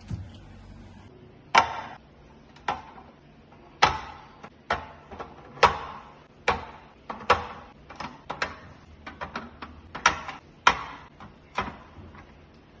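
Things being set down and moved about on the shelves of a new fridge: a dozen or more sharp knocks and clacks at an irregular pace, each with a short ring.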